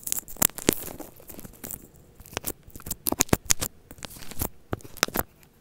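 White slime being pressed and kneaded by hand in a plastic tub, giving a sped-up sizzle of sharp, irregular crackles and pops. It is recorded close up on an Apple earphone microphone. The crackling stops shortly before the end.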